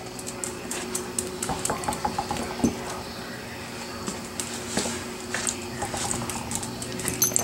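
Small dog moving about on a tile floor: scattered light clicks and taps, with one louder knock about two and a half seconds in, over a steady low hum.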